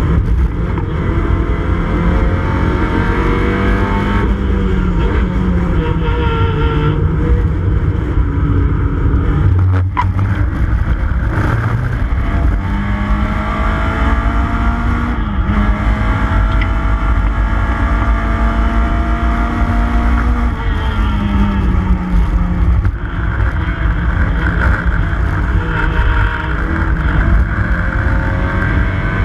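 Mini Cooper S race car's four-cylinder engine at racing speed, heard inside the cabin, its pitch climbing and dropping back several times through gear changes. There is one sharp knock about ten seconds in.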